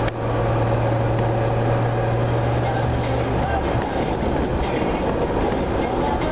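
Car engine and tyre noise heard from inside the cabin while driving, a steady low drone with road rumble, the drone easing off a little past halfway through.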